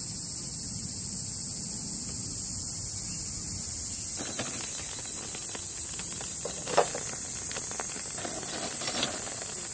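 A steady, high-pitched chorus of insects. From about four seconds in, soft rustling and a few sharp clicks join it as charcoal and a fire starter are handled at a grill.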